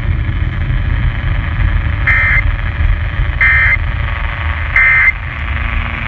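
Three short, identical electronic data bursts about a second apart: the Emergency Alert System end-of-message (NNNN) tones that close a tornado-warning alert. Under them runs a steady low rumble.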